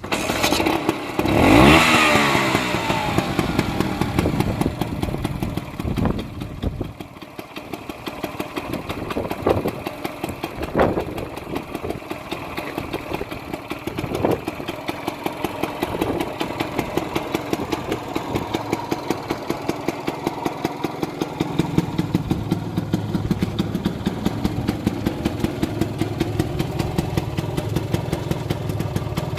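1960s Vespa VBB 150 scooter's single-cylinder two-stroke engine kick-started, catching at once and revving up sharply within the first two seconds. It then runs with a few short rises in revs before settling into a steady idle.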